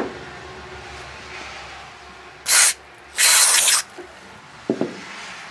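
Two hisses of aerosol carb cleaner sprayed into a chainsaw carburetor's passages, a short one and then a longer one. A few light knocks from the carburetor being handled come at the start and near the end.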